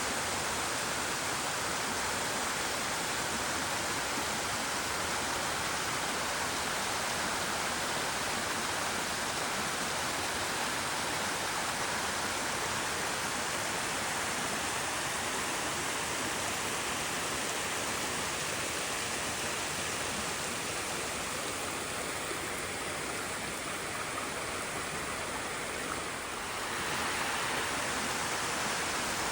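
Small tiered waterfall: water rushing and splashing steadily down its steps, with a brief shift in the sound near the end.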